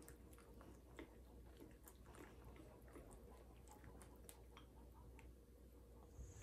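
Chopsticks stirring raw egg into rice in a glazed ceramic bowl: faint, irregular clicks and scrapes against the bowl.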